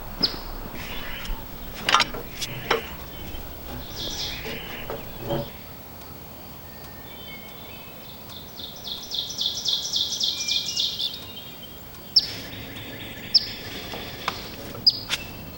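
Songbird calling: a rapid high trill lasting a couple of seconds, then several short, sharp falling chirps. A few knocks and clicks come in the first few seconds.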